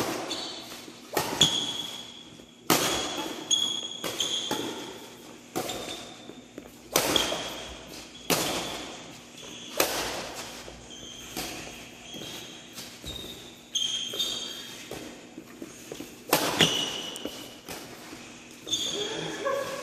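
Badminton rally: racket strings striking a shuttlecock with a sharp crack about every one and a half seconds, each hit echoing briefly under the large hall roof. Short high shoe squeaks on the court come between the shots.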